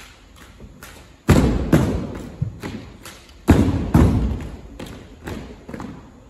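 A rifle drill team working drill rifles in unison: sharp slaps and thuds of hands and rifles, echoing in a gymnasium. There are two loud pairs of strikes, about a second and a half in and again about three and a half seconds in, with lighter taps between.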